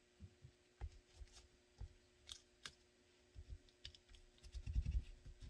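Faint scattered clicks and taps of blue tape being pressed down and smoothed with a pointed hand tool over blocking on a plastic gun mold, with a few soft low thumps of hands on the mold near the end.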